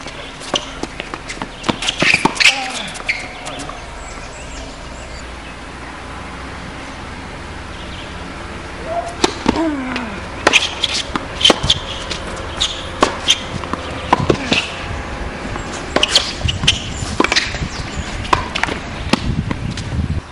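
Tennis rally on a hard court: sharp racket strikes on the ball and ball bounces at uneven intervals, with a lull between about four and eight seconds in.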